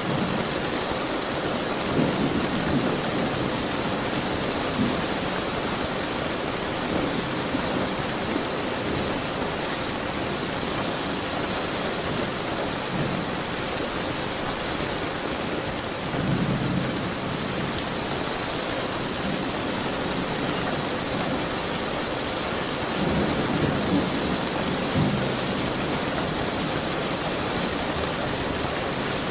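Steady rain with rolling thunder: low rumbles swell up several times, most strongly about two seconds in, just past the middle, and again near the end.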